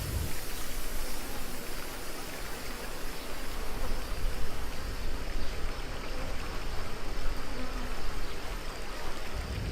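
Steady rushing water from a river-rapids raft ride channel, with continuous splashing.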